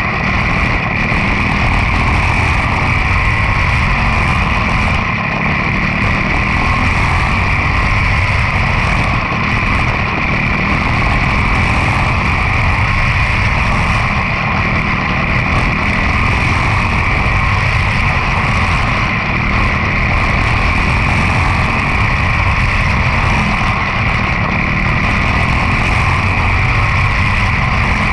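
Quarter midget race car's single-cylinder Briggs & Stratton Animal four-stroke engine running steadily while lapping a dirt oval, heard loud and close from a camera mounted on the car.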